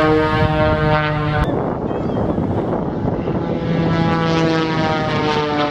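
Single-engine aerobatic propeller plane's engine drone, its pitch falling slowly. The sound cuts off abruptly about one and a half seconds in, then the drone comes back and falls in pitch again.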